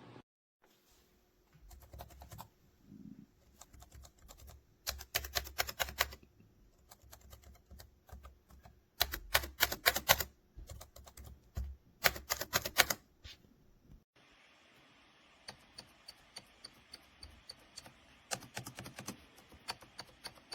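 Typing on a ProtoArc EK01 Plus ergonomic keyboard: quick runs of key clicks in bursts of about a second, with pauses between. Lighter, more evenly spaced clicks follow in the later part.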